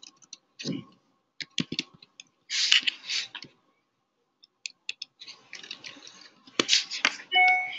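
Laptop keyboard keys clicking in short runs as a word is typed, with a couple of brief hissy rustling noises and a short steady tone near the end.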